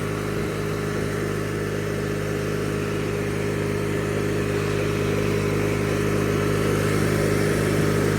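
Engine of a 1997 MTD Yard Machines riding lawn mower running steadily as the mower is driven, with a loud, even hum that grows slightly louder towards the end.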